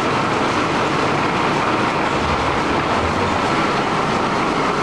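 A Jagenberg folder-gluer running, its transport belts and rollers carrying cartons through in a straight-line gluing test, makes a loud, steady mechanical noise.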